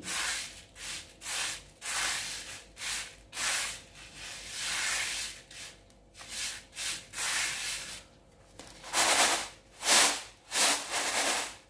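Raw rice grains swishing and rustling in a woven bamboo winnowing tray (tampah) as hands stir and sort through them, in short hissing sweeps about once or twice a second. From about nine seconds in the tray is tossed in a steady rhythm and the swishes get louder: the rice is being winnowed to separate it from unhusked grains and chaff.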